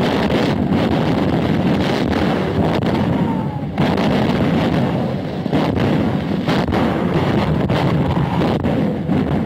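Artillery barrage: shell bursts and gunfire running together into a dense, continuous din with sharp cracks throughout. There is a brief falling whistle about three and a half seconds in.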